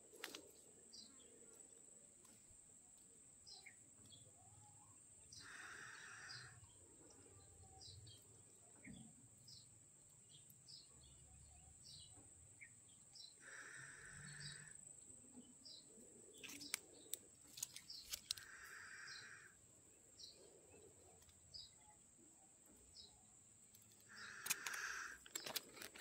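Faint outdoor ambience: birds giving short chirps about once a second and a longer call about every five to six seconds, over a steady high insect drone. Scattered clicks and rustles come in about two thirds of the way through and again near the end.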